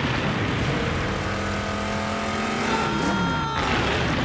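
Car engine sound effect running hard in a chase, its pitch sliding down about three seconds in as it goes by.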